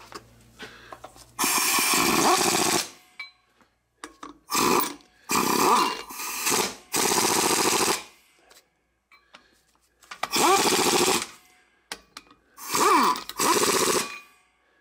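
Impact wrench run in about seven short bursts, each about a second long, its pitch rising as it spins up and falling as it stops: lug nuts being run down to seat lug studs in a wheel hub.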